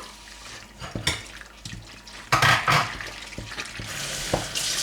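A utensil clinking and scraping against a pan while a thick cheese sauce is stirred. About four seconds in, a steady rush of running water begins.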